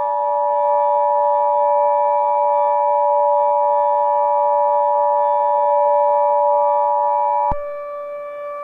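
Emergency Alert System attention signal: a steady two-tone beep (853 and 960 Hz) that cuts off suddenly about seven and a half seconds in, over a steady synthesizer drone.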